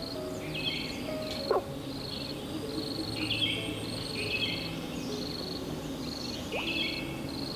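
Forest ambience of insects and birds chirping in a repeating pattern, high and regular, with soft low music notes beneath. A short downward-sliding sound about a second and a half in.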